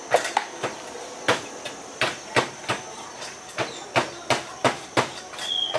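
Knife chopping on a cutting board: sharp, fairly regular strokes about three a second.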